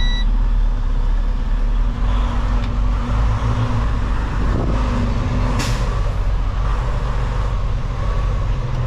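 Semi-truck diesel engine running at low revs while the loaded tanker rig is backed slowly, with a short hiss of air from the air brakes a little past halfway.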